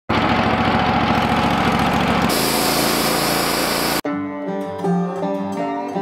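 Wood-Mizer LT40 portable band sawmill running at full speed, its engine and blade making a loud steady noise that shifts in tone a little over two seconds in. About four seconds in it cuts off abruptly and banjo and guitar music takes over.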